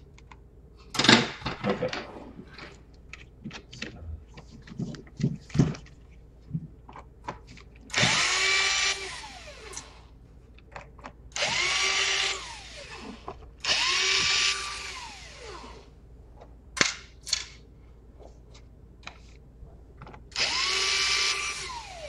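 Small cordless electric screwdriver running in four short bursts of about a second and a half, each spinning up, holding steady and winding down, as it backs out laptop case screws. Light clicks and taps come in the first few seconds.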